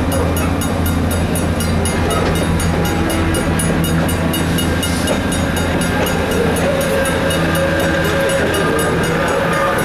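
Chicago and North Western bilevel passenger train rolling slowly past, a steady low drone with a fast, even high ticking.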